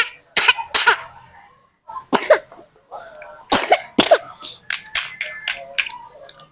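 A child coughing again and again in short, harsh bursts from a cough the child has been suffering.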